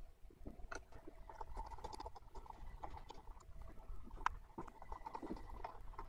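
Faint, irregular clicks and light metallic taps of an Xbox Series S's metal-shielded frame being handled and turned over in the hands during disassembly, with a couple of sharper ticks, one about four seconds in.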